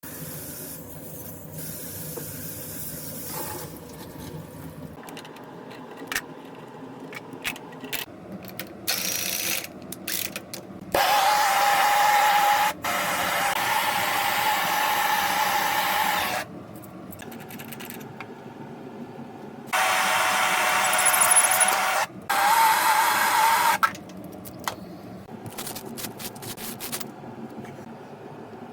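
Tool and handling noise from work on a copper pipe fitting: scattered clicks and knocks, and two sustained hissing, whirring bursts of about five and four seconds.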